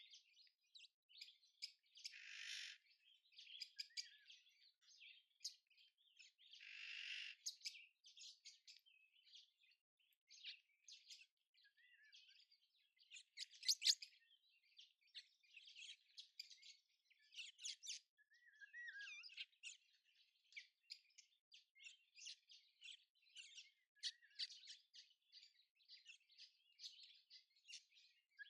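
Many small birds chirping and twittering in quick, overlapping short calls. Two harsh, rasping calls sound near the start, and the loudest chirps come about halfway through.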